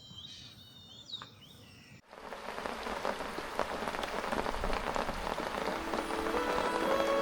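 Faint bird chirps, then after about two seconds a sudden switch to steady, dense rain patter. Soft music tones come in near the end.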